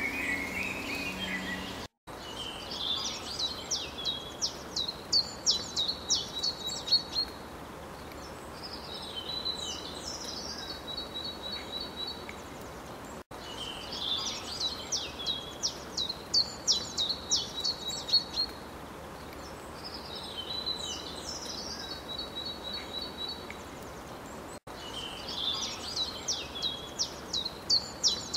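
A looped birdsong recording: each bird phrase is a quick series of sharp high notes ending in a buzzy trill, and the whole sequence repeats about every eleven seconds with an abrupt cut each time it restarts. A different sound cuts off about two seconds in.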